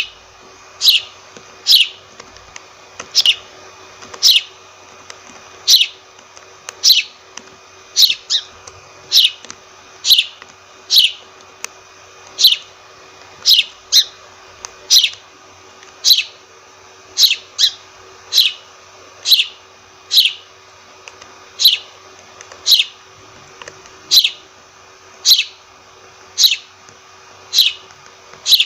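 A sparrow chirping: single short cheeps, each falling quickly in pitch, repeated about once a second with uneven gaps, over a faint steady hum.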